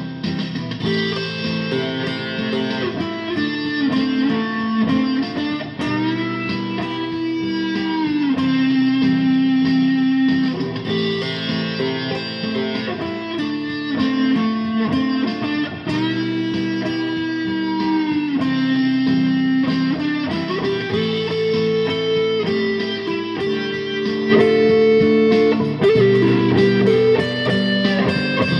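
Guitar playing a slow melody of long held notes that glide up and down in pitch, over lower chords.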